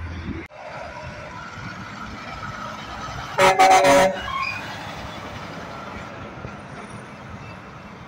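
Semi-truck air horn giving a short, loud blast of several tones at once, less than a second long, as a tractor-trailer passes close by. Steady truck engine and road noise runs underneath.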